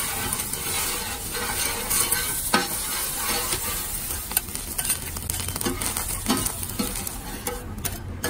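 Eggs sizzling in oil on a flat iron griddle, with metal spatulas scraping and knocking on the plate as the eggs are broken up and scrambled; a few sharp knocks stand out, the loudest about two and a half seconds in.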